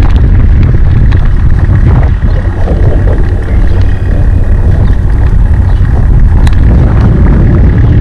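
Wind buffeting the microphone of a camera mounted on a moving recumbent trike: a loud, steady rumble with no let-up.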